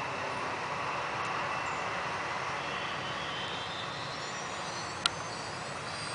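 Electric F5B hotliner model aircraft in flight: a steady rushing noise with a faint whine that rises in pitch over the second half. A single sharp click comes about five seconds in.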